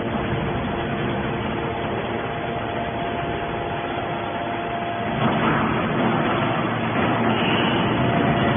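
Hydraulic scrap metal baler running: steady machinery noise with a hum, growing louder about five seconds in.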